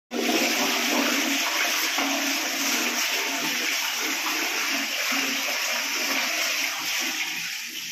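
Western toilet flushing: water from the plastic cistern rushing and swirling into the ceramic bowl. It is a steady, loud rush that eases a little near the end.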